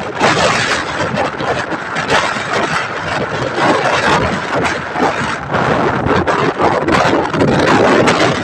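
Loud wind buffeting the microphone as it moves along at riding speed, gusting up and down, over the running noise of a motorcycle.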